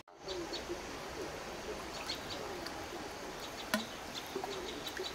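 Birds chirping in short, repeated high notes over a steady background hiss, with one sharp click about three and a half seconds in.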